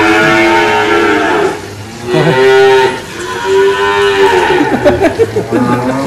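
Cows mooing: three long calls, each rising then falling in pitch, followed by shorter choppy calls near the end.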